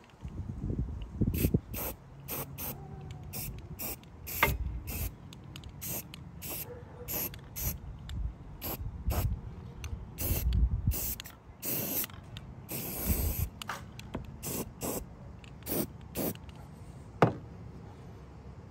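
Aerosol spray can hissing in many short bursts, with one longer spray about two-thirds of the way through.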